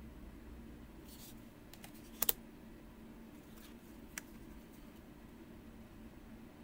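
Tarot cards being handled on a cloth-covered table: a soft swish of cards sliding, then a few light clicks of card edges tapping, the loudest a quick double tap about two seconds in and a last tap about four seconds in.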